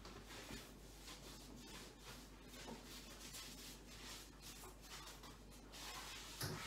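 Faint rubbing and scratching of a damp cloth wiping a kitchen worktop in repeated short strokes, with a brief knock near the end.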